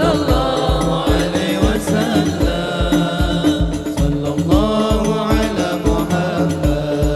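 Hadroh banjari group performing sholawat: several men's voices sing a chanted melody together through microphones over a steady beat of frame drums and a deep bass drum, about three strokes a second.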